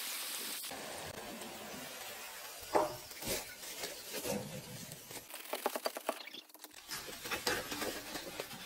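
Potato wedges sizzling in deep-fryer oil, the hiss fading as the wire basket is lifted out. Then the metal basket clinks and the wedges tumble out in a rattle of quick taps.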